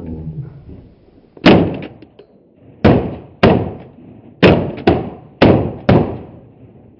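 Seven shotgun shots at irregular intervals, each with a trailing echo, starting about a second and a half in; some come in quick pairs.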